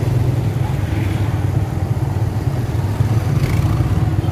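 A motorcycle's engine running steadily while riding, heard from the rider's seat, with road and wind noise over it.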